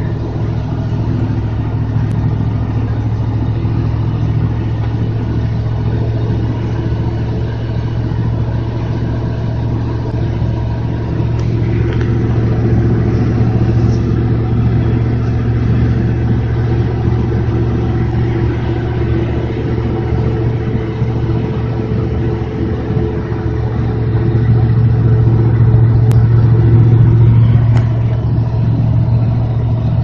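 Steady in-cab drone of a 1996 GMC pickup's V8 driving at highway speed, growing louder for a few seconds near the end.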